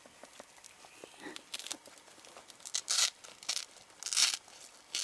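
Wood turtle hissing in several short breathy puffs, about four, the strongest near the end: the defensive hiss of a handled turtle that is not happy.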